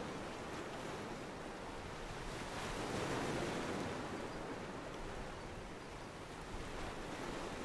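Steady rushing of wind and water, with no engine note or voices standing out. It swells briefly about three seconds in.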